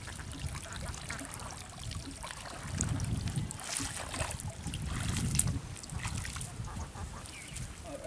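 Shallow water sloshing and splashing around a man's legs as he wades out carrying a wet cast net, with a low rumble that swells in the middle.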